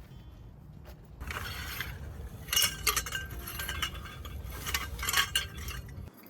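Camp gear being handled: rustling with a run of sharp metallic clinks, the loudest about two and a half, three and five seconds in.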